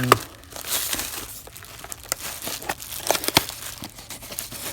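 Packaging crinkling and rustling in irregular crackles and clicks as a new steering-wheel kit part, the horn button, is unwrapped and handled.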